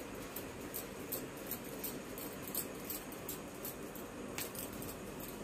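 Bangles on the wrists lightly clinking, several faint irregular ticks a second, as floury hands shape a ball of dough.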